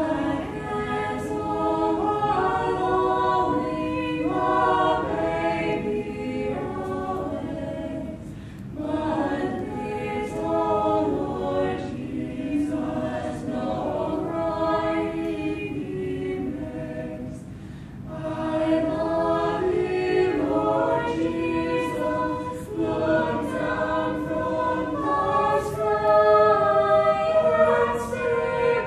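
A small mixed group of young men and women singing together a cappella, with short breaks between phrases about 8 and 18 seconds in.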